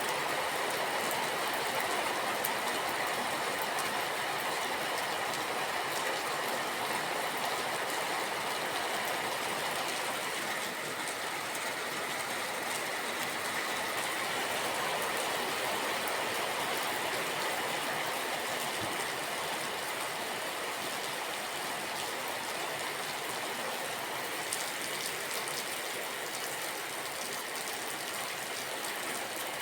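Steady rain falling: an even hiss with no break or rhythm.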